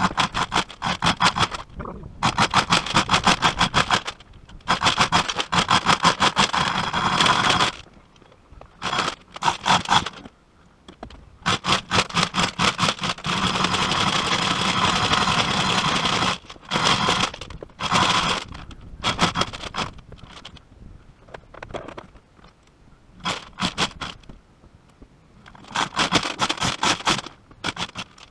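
Rapid ratcheting clicks, repeated in bursts of one to four seconds with short pauses between.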